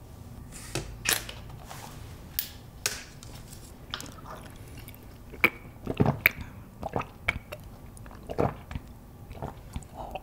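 Sharp clicks and crackles of a plastic drink bottle being handled, then a few gulps as a drink is swallowed straight from the bottle.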